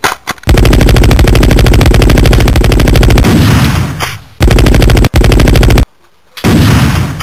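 Rapid automatic machine-gun fire, a gunfire sound effect, in three bursts: a long one of about three seconds, then two shorter ones.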